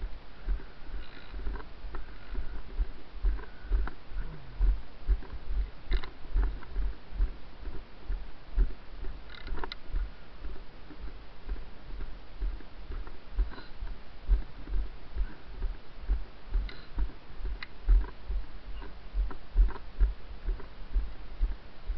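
Footsteps of a person walking on a grassy, muddy path, each step jolting a body-worn camera and heard as low thumps about two to three a second, with scattered faint clicks and short high chirps over them.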